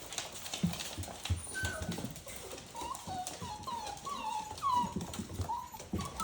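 Pit bull puppy whimpering: a string of short, high whines, each falling in pitch, about six or seven in the second half, over soft thumps and taps.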